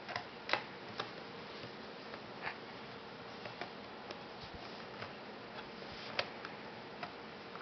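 Scattered light clicks and ticks, irregularly spaced, from a screwdriver and the plastic parts of a RAP4 T68 box magazine being handled as its screws are driven back in.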